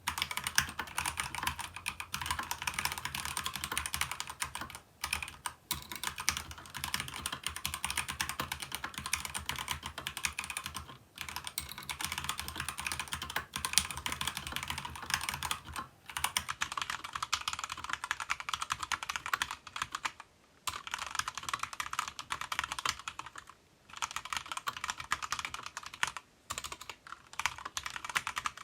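Fast typing on a Keychron K2v2 mechanical keyboard with stock Gateron Red linear switches and double-shot ABS keycaps in a foam-modded plastic case. It makes a rapid, continuous patter of key clacks, broken by short pauses every few seconds.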